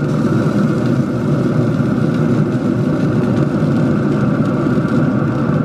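Steady mechanical whirring drone from the Traeger Timberline 850 pellet grill's fans running, with no breaks or strikes.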